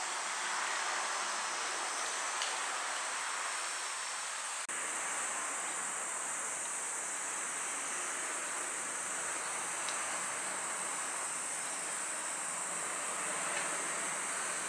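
Outdoor summer ambience: a steady, high-pitched insect drone over a soft, even hiss like wind or distant surf, broken by a brief dip a little under five seconds in.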